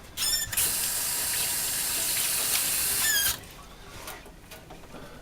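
Kitchen faucet turned on with a squeal from the valve, water running steadily into the sink for about three seconds, then turned off with another squeal.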